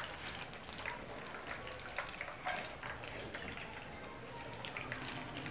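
Pizza pinwheels shallow-frying in hot oil in a frying pan: a quiet, steady sizzle with many small crackles, and a few light clicks of metal tongs against the pan.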